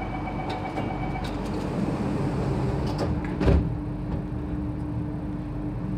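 Sliding passenger doors of an SMRT C830C Alstom Metropolitan train closing, with a brief steady tone and a few clicks at first and a loud thump as they shut about three and a half seconds in. A steady hum from the train runs underneath.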